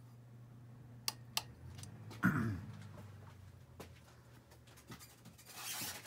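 Hunter Right at Home ceiling fan's motor humming steadily as it starts up on low speed. Two quick clicks come about a second in, then a louder brief scrape just after two seconds.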